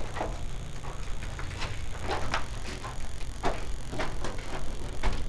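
Irregular footsteps of several people walking on a hard floor, a few steps a second, over a steady low rumble of handheld-camera handling.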